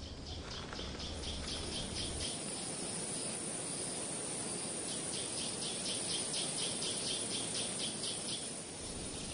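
Natural ambience: a high, rhythmic chirping from wildlife, about four chirps a second, in two runs over a steady hiss.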